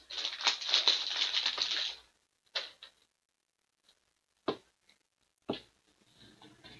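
Foil trading-card pack wrapper crinkling and tearing as it is opened, for about two seconds. Then near silence broken by three short clicks as the cards are handled.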